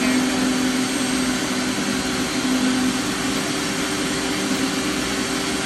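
Electric hair clippers buzzing steadily in a steady hum while shaving a head down for a basic-training haircut.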